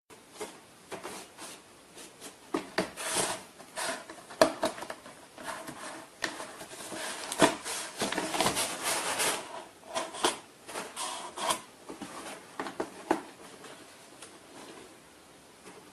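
Cardboard rustling, scraping and knocking as a cat shifts about and climbs over cardboard dividers inside a cardboard box. The scrapes and knocks come irregularly, busiest in the middle, and die away near the end.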